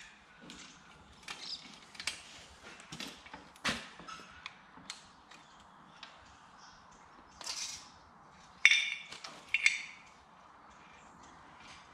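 Hand tools working on an engine's cylinder head bolts: scattered clicks of a ratchet and socket and clinks of metal parts, with a few louder clanks about two-thirds of the way through.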